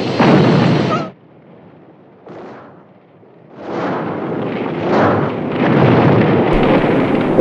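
Film sound effects of a gasoline fire and explosion. A loud blast cuts off about a second in. After a quiet stretch with one soft whoosh, a long loud rush of burning gasoline swells up into an explosion.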